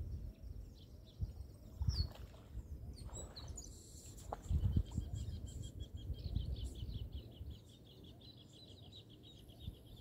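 Outdoor lakeside ambience: wind gusting on the microphone in uneven low rumbles, with birds chirping. A rapid, even, high trill runs from about halfway through.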